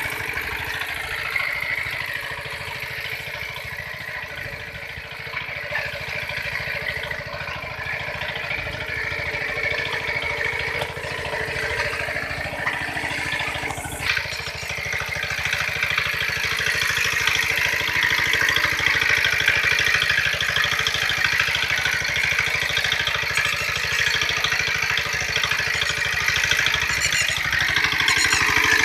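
A homemade mini tractor's 4.5 HP single-cylinder diesel engine runs steadily while the tractor pulls a cultivator between crop rows. The engine gradually gets louder toward the end.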